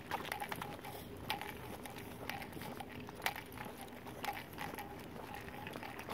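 Footsteps on a concrete sidewalk during a walk, a sharp step about once a second over a steady background hiss.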